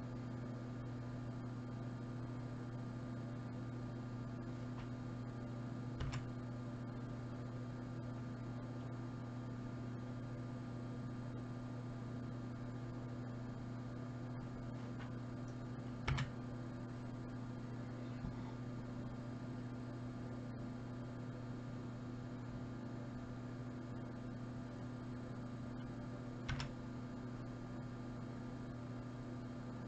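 Steady electrical mains hum, with three single clicks about ten seconds apart.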